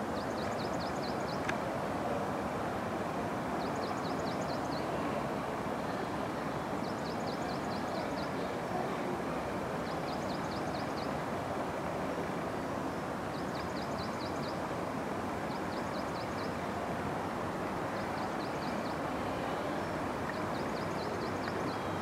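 Steady noise of road traffic. Over it, a small songbird repeats a short phrase of five or six quick high notes, about eight times, every two to three seconds.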